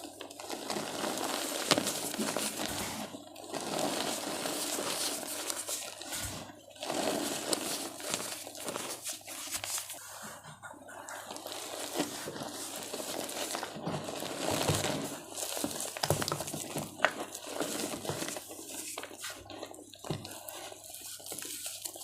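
Gym chalk blocks and cornstarch chunks wetted with water being crushed and crumbled by hand: a steady crunching and crumbling in bouts of a few seconds, with brief pauses between squeezes and scattered sharp crackles.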